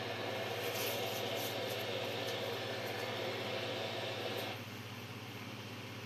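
Steady hiss with a low hum from a weather radio receiver's speaker on dead air between announcements. About four and a half seconds in the hiss drops away suddenly, leaving a fainter hiss and hum.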